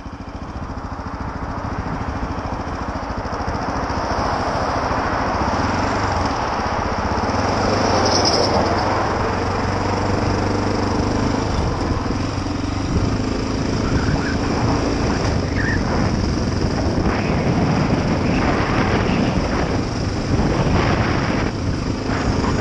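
Honda XR650L's single-cylinder four-stroke engine pulling away and accelerating through the gears, getting louder over the first few seconds and then running steadily at speed. Uneven wind noise on the microphone in the later seconds.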